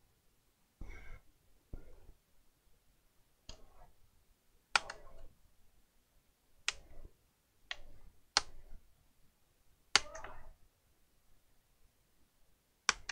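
Plastic snap clips of a Lenovo Flex 2-14 laptop case popping loose one after another as the cover is pried open. About seven sharp clicks come at irregular intervals, with softer scraping and handling of the plastic in between.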